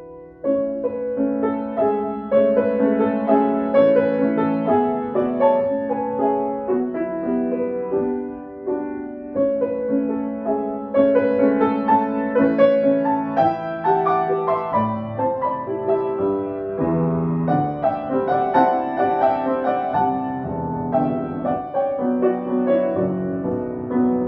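Grand piano played solo: a rag, with chords and melody notes moving over a bass line.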